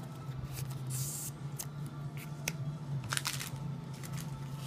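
Trading cards being slid into plastic card sleeves: short soft swishes and light ticks of card against plastic, a longer hiss about a second in and a cluster of ticks near three seconds, over a steady low hum.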